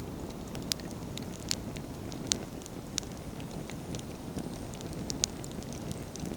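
Wood fire burning: a steady low rush of flames with irregular sharp crackles and pops from the burning firewood, a few louder snaps standing out.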